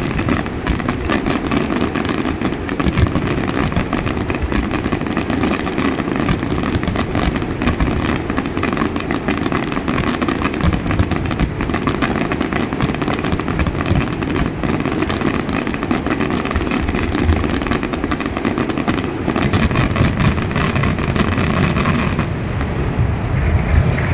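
Fireworks finale barrage: rapid explosions packed so densely that they merge into one continuous rumbling crackle. It is heavy in the low end and thins briefly near the end.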